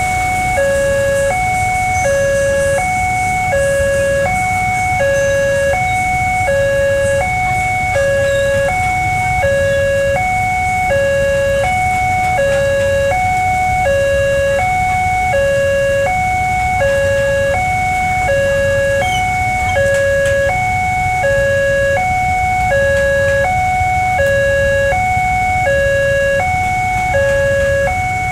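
Railway level-crossing warning alarm sounding from the loudspeaker on the signal mast while the barrier is down: two electronic tones alternate in a steady high-low pattern, each held just under a second. Low road-traffic rumble runs underneath.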